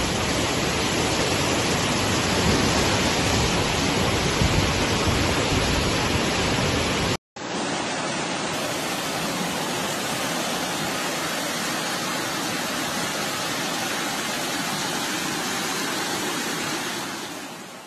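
Floodwater rushing down a street, a steady dense noise of fast-flowing water. It cuts out for a moment about seven seconds in, then goes on with less low rumble.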